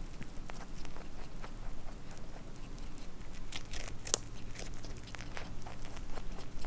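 A rabbit biting into and chewing a fresh strawberry close to the microphone: a quick, irregular run of small crunching clicks.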